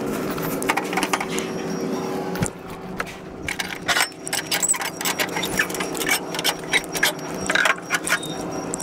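Metal chain rattling and clinking in quick irregular clanks, starting about two and a half seconds in, over a steady truck engine hum.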